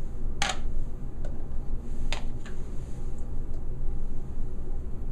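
Sharp plastic clicks and knocks from handling an ultrasonic cleaner's lid and clear plastic parts, the two loudest about half a second and two seconds in, with a couple of fainter ones, over a steady low hum.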